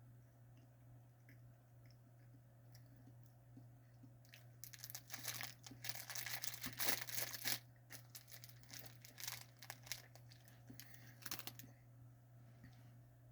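Plastic snack-cake wrapper crinkling and tearing in a run of rustles from about four seconds in until near the end, loudest in the middle, over a faint steady low hum.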